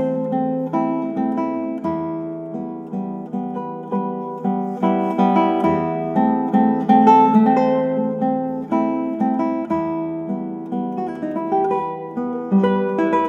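Classical guitar playing solo: a continuous run of plucked notes over a repeated low bass note.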